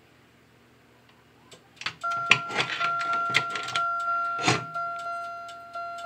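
Wheelock fire-alarm chime strobe sounding on the Simplex 4001 panel's march-time signal: a two-note electronic chime struck over and over, each strike fading quickly. The chime runs its own code and can't keep up with the march-time pulses. A few sharp clicks come among the first strikes.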